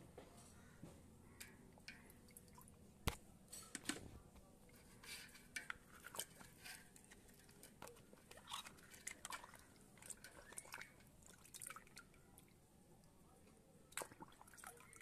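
Faint water drips and small splashes with scattered light clicks of plastic toys being washed by hand, the sharpest click about three seconds in.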